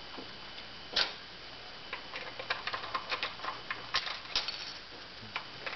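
Hard plastic clicks and taps from the halves of a canister vacuum cleaner's handle being handled and fitted together. There is one sharp click about a second in, then a run of small quick clicks through the middle.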